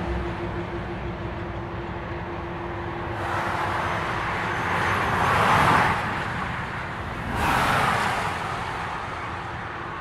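Lo-fi experimental noise track: a steady low drone under washes of hiss that swell up twice, once around the middle and again near the end, before the track cuts off abruptly.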